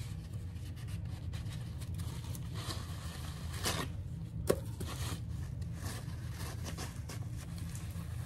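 Light scraping and rustling of paint-pouring supplies being handled, with one sharp tap about four and a half seconds in, over a steady low hum.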